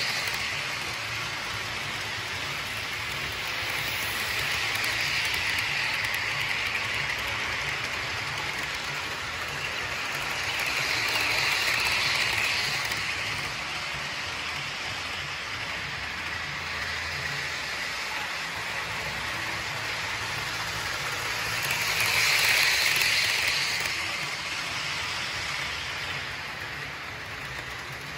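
Model train running around the layout out of sight: a steady rolling rattle of wheels on rail, swelling louder three times as it passes nearer, over a low hum.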